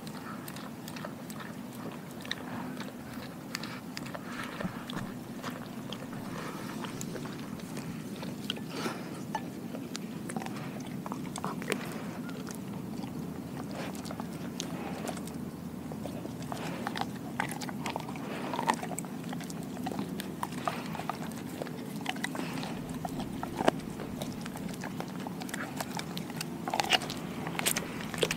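Doberman biting and chewing a whole raw Cornish hen, making irregular crunches and clicks as it tears at the meat and bone. The crunches grow louder and more frequent near the end, over a steady low hum.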